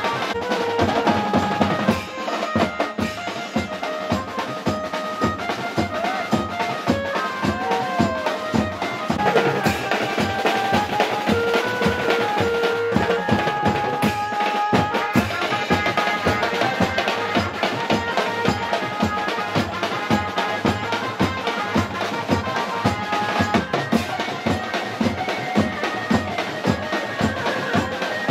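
Live band music for dancing: fast, steady drumming on a bass drum and drum kit under a melody line that slides in pitch now and then.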